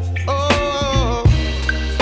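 Background music: a song with a sung melody over a steady bass beat.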